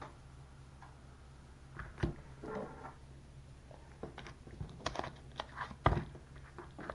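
Plastic packaging of a pork roll being cut open and handled: faint scattered clicks and crinkles, with a couple of sharper knocks about two seconds in and near the end.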